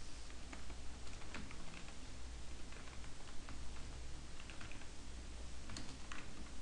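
Computer keyboard typing: irregular, uneven key clicks over a low steady hum.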